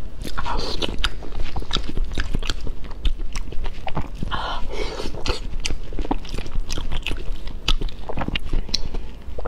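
Close-miked eating sounds of a person biting and chewing soft meat covered in minced garlic and chili sauce. Many short sharp mouth clicks and smacks come in quick irregular succession throughout.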